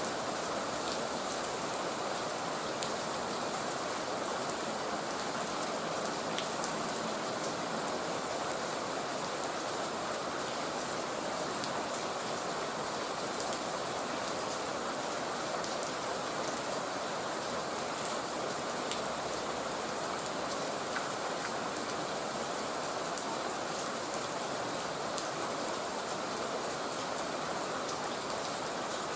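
Heavy rain falling steadily, a dense even hiss with scattered drop ticks, unchanging in strength.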